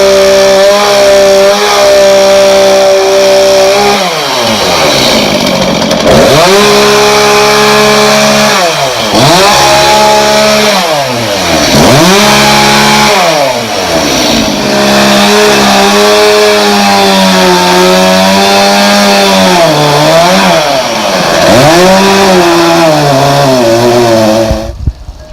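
Chainsaw cutting into a bougainvillea bonsai's trunk: it runs at a steady high speed for about four seconds, then its pitch sags and recovers again and again as the chain bites into the wood and eases off, and it stops shortly before the end.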